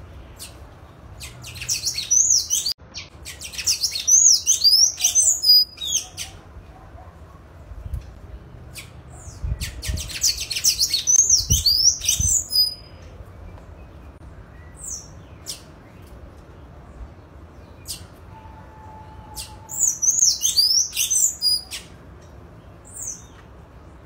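Sayaca tanager singing: three bursts of rapid, high, squeaky twittering notes, each a few seconds long, with a few single short notes in between.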